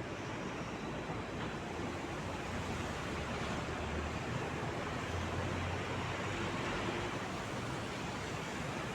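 Steady rushing wash of distant city traffic, with a low engine rumble swelling twice in the middle.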